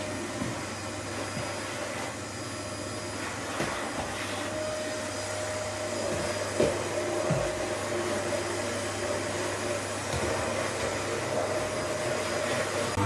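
Paper-bag vacuum cleaner running steadily, with a few light knocks from the nozzle against the floor or furniture.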